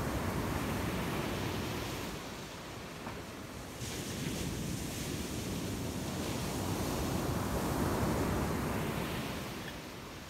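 Ocean surf breaking on a sandy beach: a steady rushing wash that dips briefly, then swells to its loudest about eight seconds in and eases off near the end.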